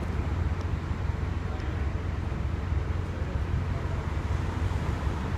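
Outdoor street ambience: a steady low rumble with a wash of noise over it.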